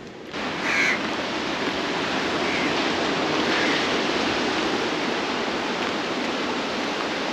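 Steady rushing noise of wind and sea waves at the shore, even and unbroken.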